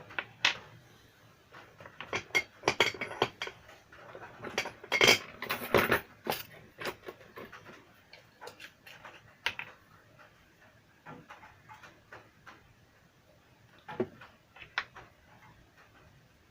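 Small hard objects being handled and set down: irregular clicks and clatter, a busy run of them a few seconds in, then scattered single taps.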